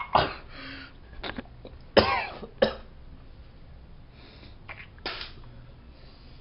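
A person gagging and coughing after swallowing a little raw egg: a run of about five short retching coughs, the loudest and roughest about two seconds in.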